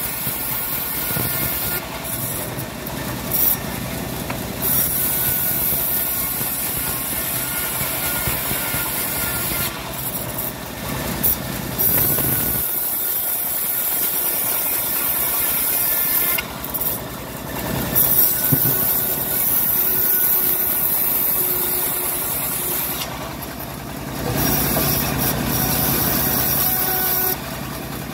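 Home-built bandsaw ripping a plank of dry teak lengthwise: a steady rasping hiss of the blade cutting wood, broken by several short dips of a second or two as the plank is fed and repositioned.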